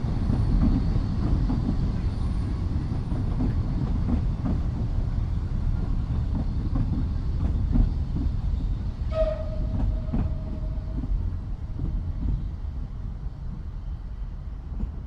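Steam train rolling past: a dense low rumble with many sharp clacks from the wheels, a brief high tone about nine seconds in, and the sound slowly growing fainter toward the end.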